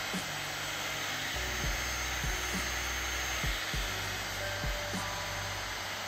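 Heat gun blowing a steady rush of hot air, with background music underneath carrying a bass line and a kick-drum beat.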